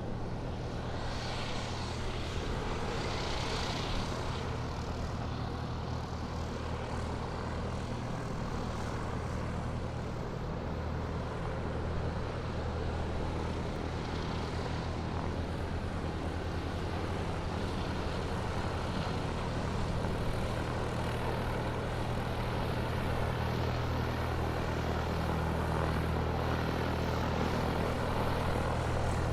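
Airplane engines running while the aircraft taxis: a steady low drone with a broad rushing noise over it, growing slightly louder toward the end.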